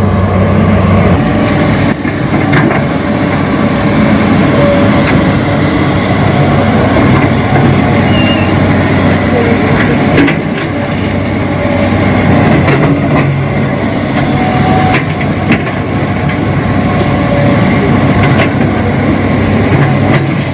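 Steady diesel-style engine drone from a radio-controlled model excavator at work, with scattered clicks and knocks throughout.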